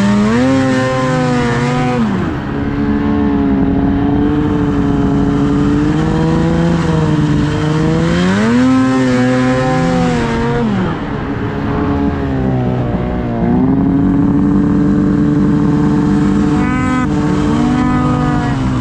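Ski-Doo snowmobile engine running under way, its pitch rising and falling as the throttle is opened and eased off several times.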